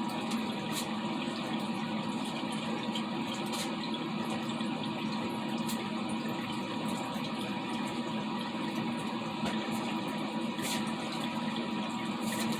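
Evaporative air cooler running in cooling mode: a steady whir from its fan and water pump, with water trickling through the pad. A few light clicks.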